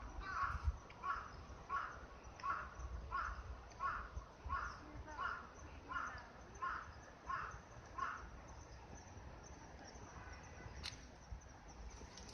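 A crow cawing in a steady series of about a dozen short calls, roughly one every two-thirds of a second, stopping about eight seconds in.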